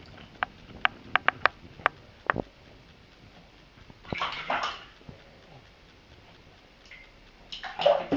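Kitten splashing in shallow water in a bathtub: a quick run of sharp clicks in the first couple of seconds, then two bursts of splashing, about four seconds in and again near the end.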